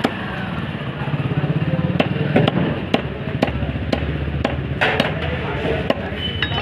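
Heavy curved knife chopping a tilapia into pieces on a wooden log block: a run of sharp chops at uneven intervals. A steady low hum runs underneath.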